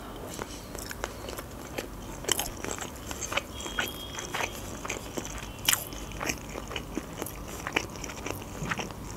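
Close-up chewing of a mouthful of sushi roll, with irregular sharp clicks and crunches.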